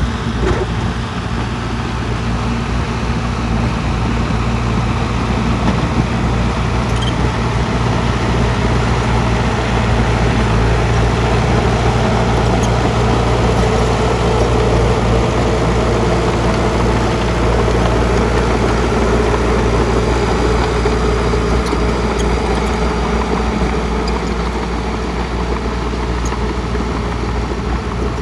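Heavy earthmoving machinery on a construction site running steadily: a loud, even, low engine rumble with a noisy mechanical din over it that holds at one level throughout.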